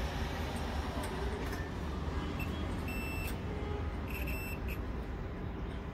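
Multimeter continuity buzzer giving three short high beeps in the second half as its probes touch the terminals of a toaster's thermostat on/off switch. The beeps show that the switch conducts, which is the sign that it is intact. A steady low rumble runs underneath.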